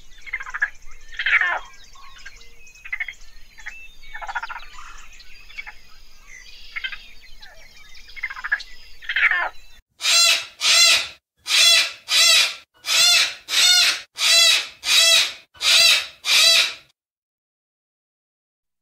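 Two raccoons giving short, irregular calls, then a sulphur-crested cockatoo letting out about ten loud, harsh screeches in a steady rhythm, roughly one every half second or so.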